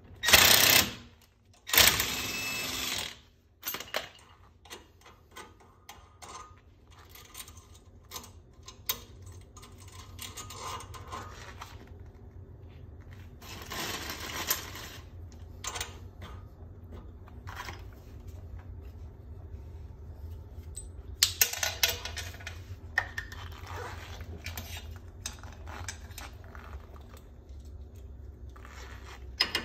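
A cordless power tool runs in two short bursts, spinning a nut down a new wheel stud to draw it into the front hub. After that come scattered light metallic clinks and rattles as studs, nuts and tools are handled.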